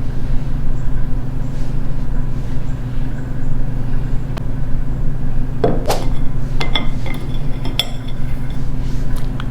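A steady low hum throughout, with a short run of hard clinks and taps about six to eight seconds in, a few of them ringing briefly, as hard pieces are handled against a dish.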